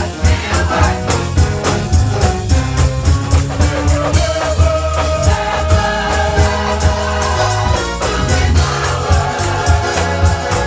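Church choir singing a gospel song with a live band: drums keep a steady beat over a strong bass line, and the voices hold long notes in the middle.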